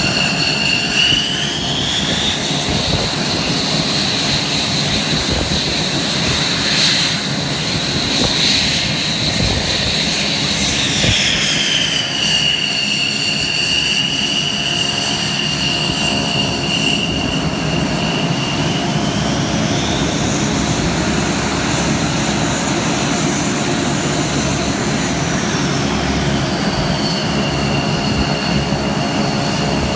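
Aircraft turbine engine running on the ground: a high whine with overtones over a steady low rumble. The whine rises in pitch within the first few seconds, drops back a little before halfway, climbs higher again about two-thirds through and settles back near the end, as the engine's speed is changed.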